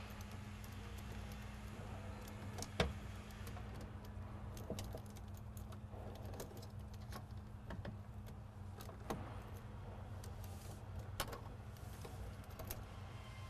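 Wire terminals being pushed onto the connectors of a new 1955–1959 Chevy headlight switch: scattered small clicks and rattles, with a sharper click about three seconds in and another near eleven seconds, over a steady low hum.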